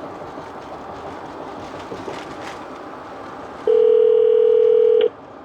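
Steady road and engine noise inside the moving truck's cabin. About two thirds through, a loud, steady electronic tone from a phone call sounds for about a second and a half and cuts off suddenly.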